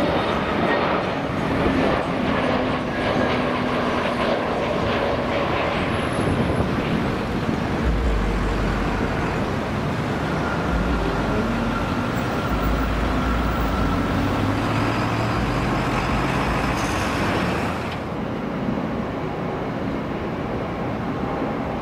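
Airbus A320 jet airliners passing close: a steady, loud rushing jet noise, with a deep low rumble swelling in and out through the middle. The sound turns duller near the end.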